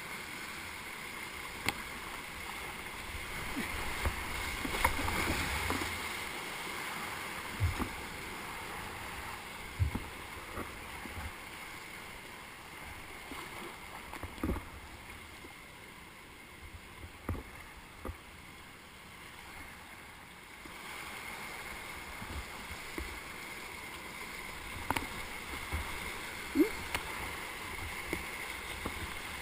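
Whitewater rapids rushing around a kayak, with scattered sharp knocks and splashes from paddle strokes. The rush swells about five seconds in, eases in the middle and rises again.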